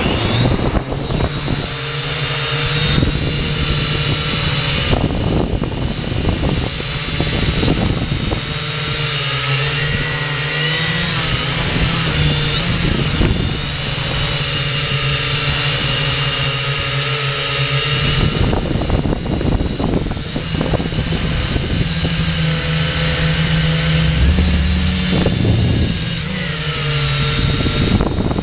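Xtreem Fly Eye camera drone's electric motors and propellers whining in flight, heard from its onboard camera, the pitch stepping up and down as the throttle changes, over a rushing noise.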